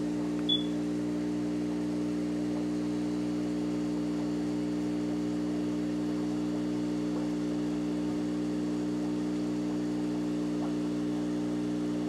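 A steady low hum made of several steady tones over a faint hiss, unchanged throughout, with one brief high chirp about half a second in.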